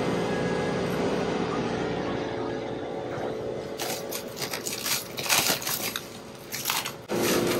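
Plastic bags of frozen squid rings crinkling and crackling as a hand presses and shifts them on a freezer shelf, in a run of short bursts starting about four seconds in, over a steady hum.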